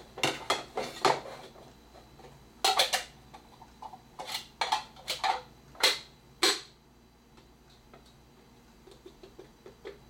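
Hollow plastic knocks and clatters as small plastic bowls are handled and tapped on a plastic high-chair tray. They come in a few quick clusters over the first seven seconds, with only faint ticks near the end.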